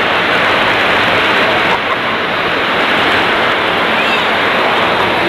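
Heavy rain falling: a dense, steady hiss.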